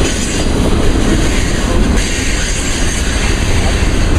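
Union Pacific intermodal freight train rolling slowly past, a steady noise of wheels on the rails, heaviest in the low end, with no horn sounding.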